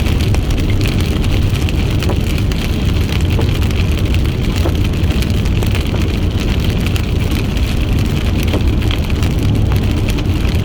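Steady road and engine noise inside a moving car's cabin, a constant low rumble with a hiss of tyres on the road.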